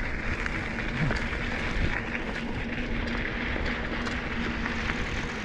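Steady wind rumble on a bike-mounted GoPro and tyre noise from an e-bike rolling along a dirt and gravel track, with a faint steady hum underneath.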